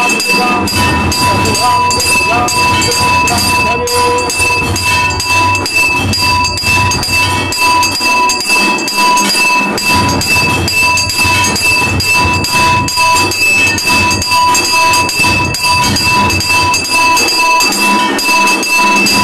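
Temple bells rung rapidly and without pause: a steady metallic ringing tone over a fast clatter of strikes, with a low beat underneath.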